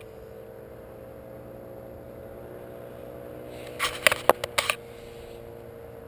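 Steady drone of a paramotor engine flying overhead, its pitch creeping slightly upward. A quick cluster of sharp clicks comes about four seconds in.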